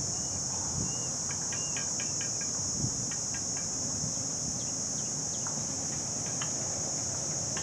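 Steady high-pitched chorus of crickets or similar insects, with a few faint short chirps scattered through it.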